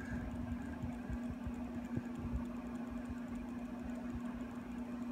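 A steady low hum with faint, irregular low thumps and rumble underneath.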